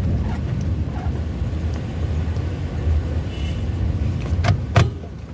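Vehicle running steadily down a steep descent, a low engine and road rumble, with two sharp knocks near the end.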